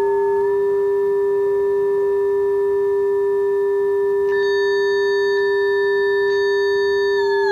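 Steady electronic tone from a tone generator fed through a multi-effects pedal, with fainter higher tones held above it. About four seconds in a few faint clicks come and more high tones join, and near the end the upper tones start sliding down in pitch.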